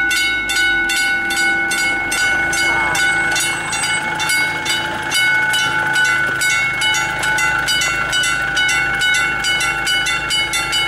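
Level crossing warning bell ringing continuously at a steady pace of about three strikes a second, each strike ringing on, as the crossing's half-barriers come down.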